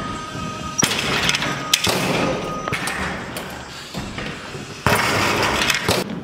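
Basketballs bouncing and hitting the court, a series of irregular thuds over a busy background.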